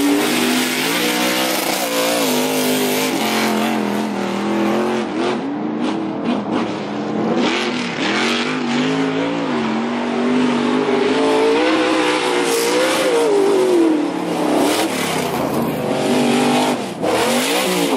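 Pro2 off-road race truck's LSX-based V8 engine, run hard, revving up and falling off again and again with each throttle change, with a dip and a fresh climb near the end.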